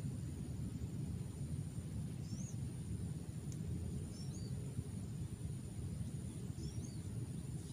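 Open-air ambience at a river-mouth shore: a steady low rumble, with a small bird's short curling chirps three times, a second or two apart, high above it and a thin steady high tone behind.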